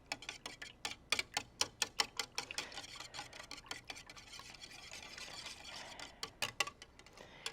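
Two eggs being beaten into milk in a bowl by hand, the utensil clicking rapidly against the side of the bowl several times a second, with a softer swishing stretch in the middle.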